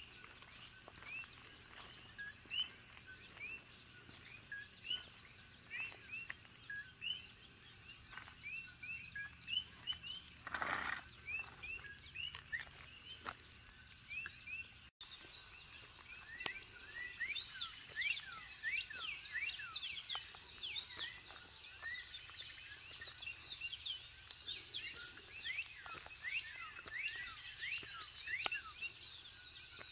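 Many birds chirping in a morning chorus: short quick chirps overlapping over a steady high hum, growing much denser after a brief dropout about halfway.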